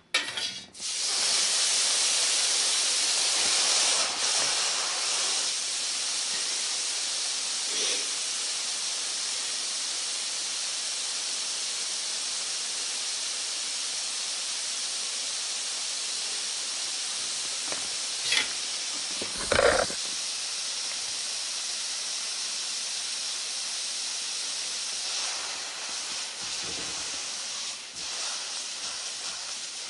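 Steady hiss of steam as a hot Chicago Electric carpet seam iron is pressed onto a cloth over the carpet, steaming the carpet to flatten it. A couple of short knocks come a little after halfway.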